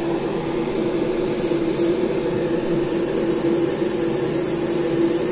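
Airbrush hissing as it sprays, coming in about three seconds in after a few short puffs of air, over a steady motor hum with a strong low tone.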